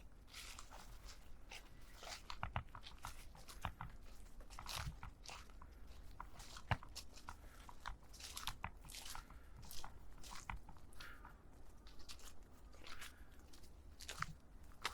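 Footsteps crunching on a hill path, with many small irregular crackles and clicks underfoot, and the walker's breathing.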